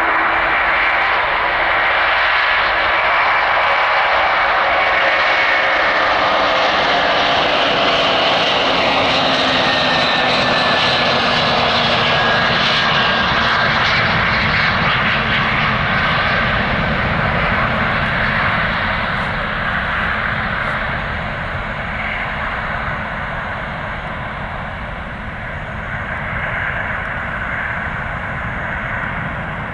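Antonov An-124's four D-18T turbofan engines at take-off power as the heavy freighter lifts off and climbs away: a loud, continuous jet roar whose tones slide slowly down in pitch as it goes past, then grows fainter over the last third.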